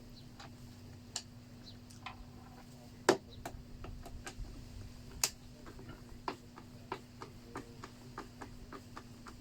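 Small hand-tool clicks and taps while undoing the Torx screws on the plastic housing of a Stihl BG 56 leaf blower: a string of light ticks at about two a second, with two sharper knocks about three and five seconds in, over a faint steady hum.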